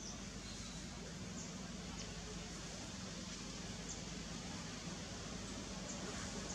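Quiet outdoor background: a steady hiss and faint low hum, with a few faint, short high chirps now and then.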